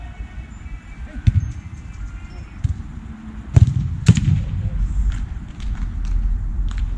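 Sharp thuds of a football being struck: one about a second in and two close together around three and a half and four seconds in, over wind rumbling on the microphone.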